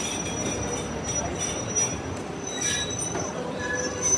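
Passenger coaches rolling slowly past a platform as the train pulls in, with a steady high-pitched squeal over the rumble of the wheels on the rails.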